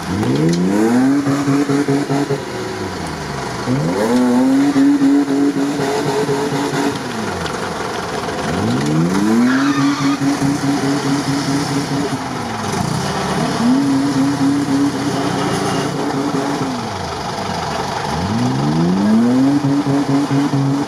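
Mercedes-Benz G-Class engine revved hard five times, each time climbing fast, holding high for a few seconds and dropping back, as its wheels spin in deep mud while it is stuck.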